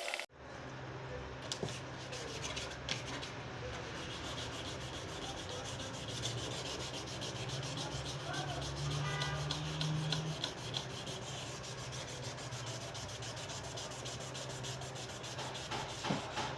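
Plastic of a car brake-light housing being sanded: steady, scratchy rubbing that goes on without a break.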